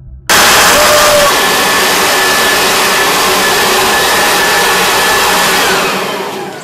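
Leaf blower running at full speed, a loud steady rush of air with a faint whine in it, starting abruptly. Near the end the rush fades and the whine falls in pitch as the blower winds down.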